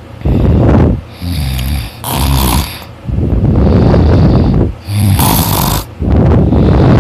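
A man snoring loudly: about six snores in quick succession, several with a low buzzing pitch.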